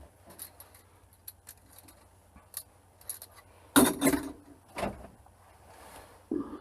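Small pieces of scrap steel (tube offcuts, springs) clinking and clattering as they are rummaged through by hand, with a louder clatter a little under four seconds in and another shortly after.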